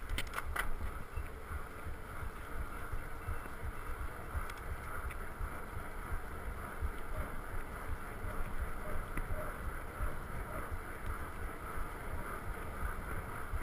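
Wind buffeting an action camera's microphone while a fat bike rolls along tarmac, a steady rushing noise with deep rumble. A few light clicks near the start.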